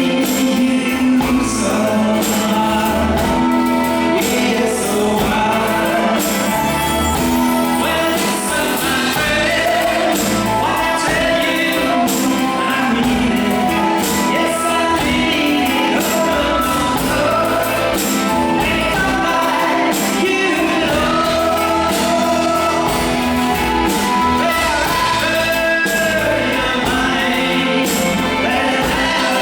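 A live pop band playing a song with sung vocals over a steady drum beat.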